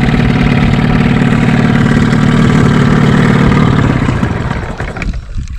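Gasoline outboard motor running steadily, then fading and dying out about four to five seconds in as it runs out of fuel.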